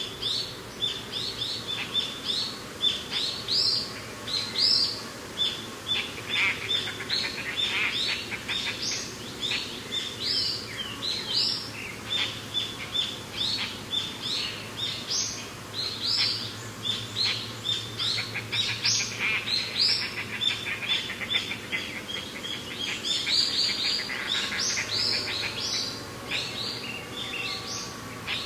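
Several birds chirping and singing in quick, overlapping high notes.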